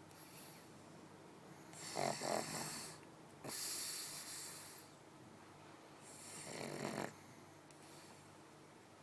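Pug snoring loudly in its sleep: three separate noisy breaths a couple of seconds apart, a buzzing snore about two seconds in, a longer hiss of breath around four seconds, and another snore near seven seconds.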